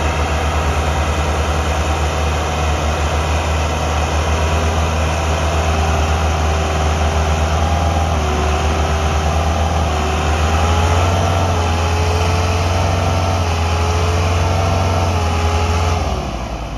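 Massey Ferguson 375 tractor's diesel engine running hard under heavy load, straining against a stuck, fully loaded sugarcane trolley that will not move. Its note rises a little about ten seconds in and falls away near the end.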